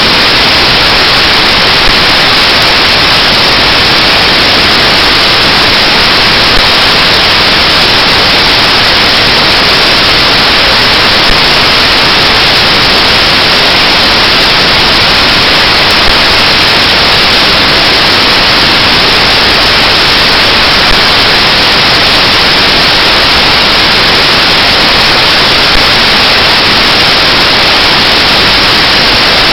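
Loud, steady static hiss like white noise, with no change in level, broken only by a slight click about every five seconds.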